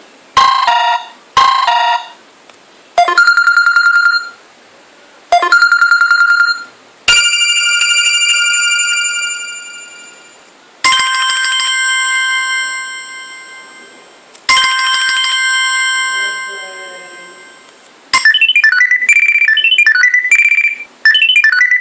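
Stock Samsung Galaxy Tab 2 ringtones played one after another: two short electronic rings, then two trilled ring tones, then three bell-like chimes that ring out and fade, and a quick run of melody notes near the end.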